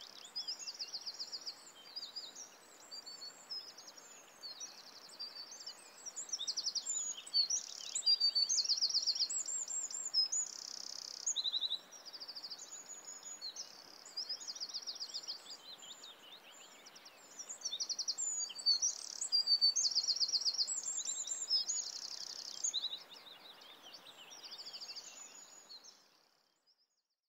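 Birdsong: many small birds chirping and trilling in overlapping calls over a faint background hiss, fading out near the end.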